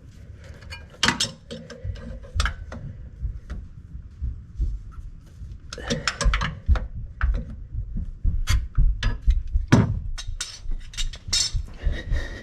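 Channel-lock pliers clicking and clinking against a stuck oil filter as it is gripped and twisted loose, with irregular metallic knocks and scrapes. The filter is one the owner thinks was over-tightened at the last oil change.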